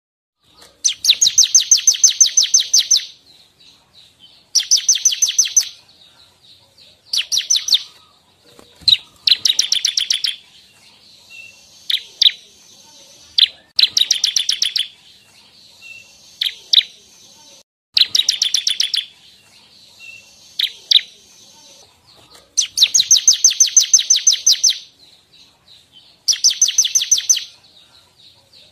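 Bar-winged prinia (ciblek) singing: repeated bursts of fast, high, trilled chirps, each lasting one to two seconds, with a few short single notes between the bursts.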